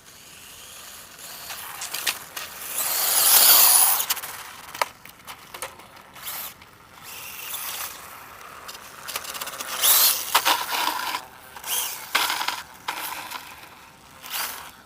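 ZD Racing Phantom 400 brushless electric RC dirt bike's motor and drivetrain spinning up in bursts as it is driven through stunts. The loudest surge builds to about three seconds in and another comes about ten seconds in, with scattered clicks and rattles from the bike in between.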